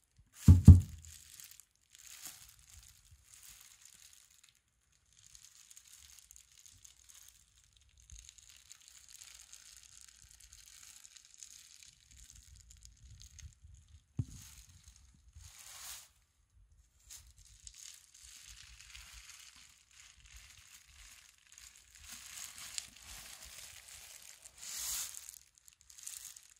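Plastic bubble wrap crinkling and rustling on and off as a porcelain hibachi is handled and turned over on it, with a loud low thump about half a second in.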